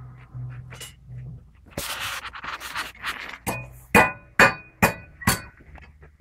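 Metal shashlik skewers being handled: a scraping rustle, then five sharp metallic clinks that each ring briefly, about two a second.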